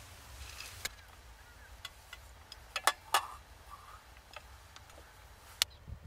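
Several short, sharp clicks and taps at irregular intervals, the loudest two close together about three seconds in, over a faint low hum.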